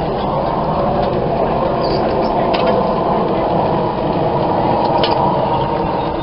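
Tour vehicle running as it drives, a steady loud rumble with indistinct voices of riders mixed in and a few light knocks.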